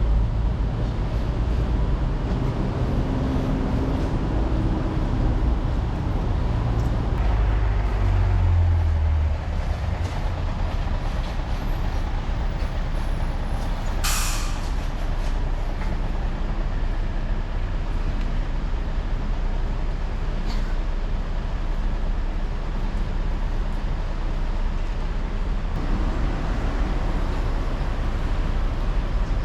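Train running with a steady rumble; a low tone climbs over the first several seconds, and about 14 s in there is a short hiss of released air.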